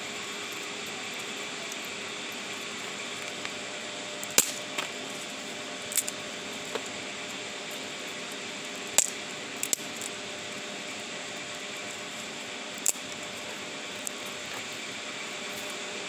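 Wood fire in a metal fire pit crackling, with sharp pops every second or two, the loudest about four and a half and nine seconds in. Under them is a steady rush of running water.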